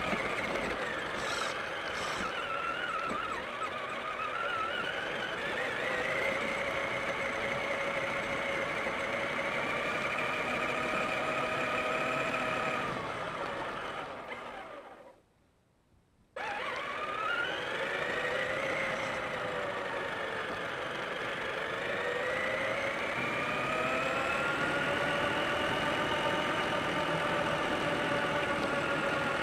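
Traxxas Summit RC truck's electric motor and drivetrain whining from its onboard camera, the pitch rising and falling as it speeds up and slows. The sound drops out for about a second halfway through, then the whine resumes.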